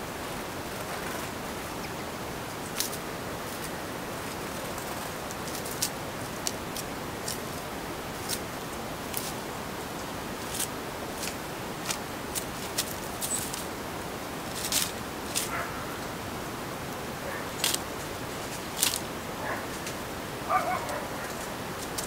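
Small birds drinking and bathing at a shallow water bowl: scattered short, sharp ticks and flicks, more frequent in the second half, over a steady hiss, with a few brief chirps near the end.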